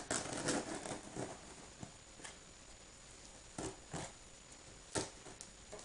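Scissors being used to cut open a cardboard box: a rustle, then a few scattered sharp snips and clicks.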